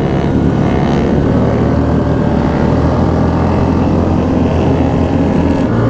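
Motorcycle engine running steadily while riding along at a constant speed in a group of bikes.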